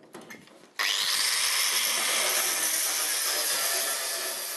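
Angle grinder starting about a second in, with a brief rising whine as it spins up, then grinding steadily on the steel body of a 1943 VW Typ 82. It is working on an old wheel rim welded on as a makeshift spare-wheel mount, which is to be removed.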